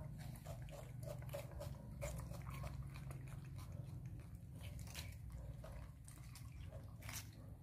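Baby macaques biting and chewing raw cucumber slices: a scatter of short, crisp crunching clicks over a steady low hum.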